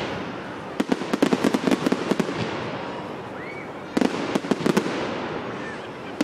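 Aerial fireworks bursting, with rapid strings of sharp crackling cracks about a second in and again about four seconds in, over a steady rumble.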